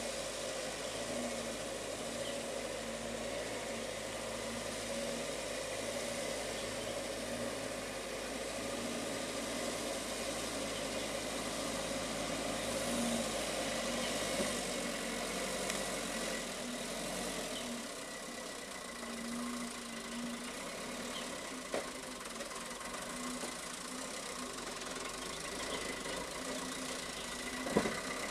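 Engine of a loaded light truck running slowly as it crawls over deep ruts, with a steady whine over a low hum. One or two sharp knocks near the end.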